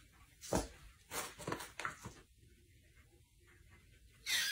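Several short knocks and taps in a small room, then, near the end, a loud high-pitched animal cry begins.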